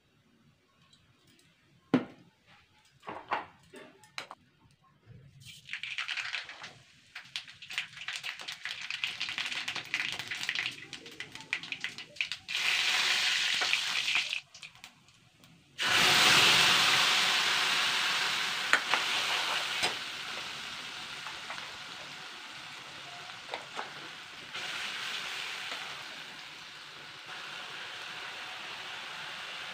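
Hot oil crackling in a steel kadhai, with a few metal knocks. About halfway through, a wet spice paste of mustard, garlic, onion and ginger goes into the oil with a sudden loud sizzle that slowly settles as it fries.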